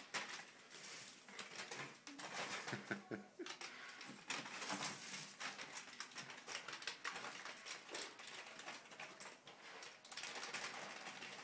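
A pet crunching and eating dry cereal spilled on a hard floor, with irregular small crunches and clicks of the pieces.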